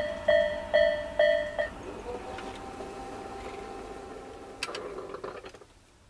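Tobu 'A'-type electronic level-crossing alarm ringing about two strikes a second, stopping about a second and a half in. Then the Nippon Signal EM1029A electric crossing barriers lift with a faint steady whine, ending with a few clicks and clunks near the end as the arms come upright.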